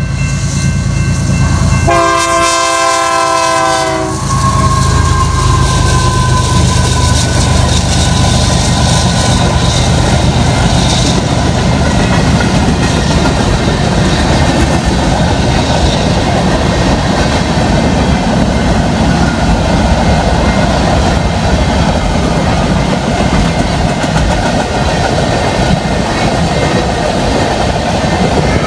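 BNSF freight train passing close by. Its locomotive horn sounds a multi-note blast from about two to four seconds in, then the steady rumble and clickety-clack of the rail cars on the track carries on.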